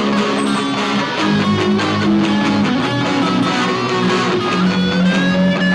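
Guitar music: strummed chords under a lead guitar line. Near the end a lead note is bent up and held.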